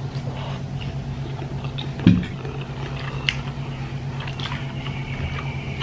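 A person chewing a mouthful of bakso meatball and noodles, with small wet mouth clicks. A steady low hum runs underneath, and there is one sharp knock about two seconds in.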